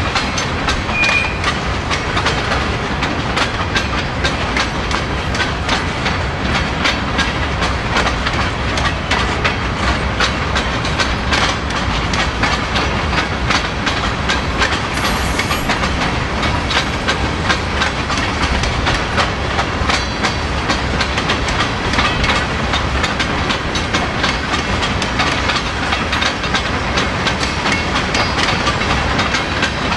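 Freight train cars rolling past at speed, their wheels clicking steadily over the joints of jointed rail: a continuous clickety-clack over a steady rumble.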